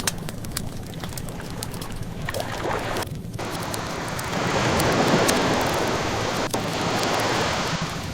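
Ocean waves washing in, one wave swelling up about four seconds in and easing off, with a wood fire crackling throughout and a few sharper pops.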